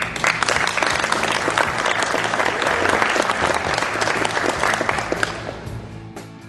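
Audience applauding, many hands clapping at once, starting suddenly and dying away over the last second or so.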